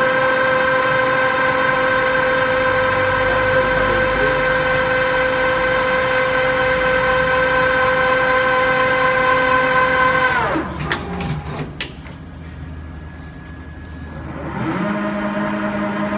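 Nardini TT 125 CNC lathe running with a steady high machine whine that falls in pitch and dies away about ten seconds in. A few sharp clicks follow as the electric tool turret indexes, then a lower steady hum starts near the end.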